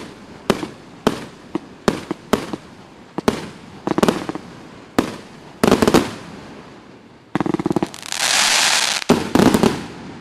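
AF150-C 150-shot fireworks cake firing its final shots: sharp reports about two a second, thickening into quick volleys of bangs. About eight seconds in a dense crackling hiss sounds, and a last cluster of bangs comes near the end.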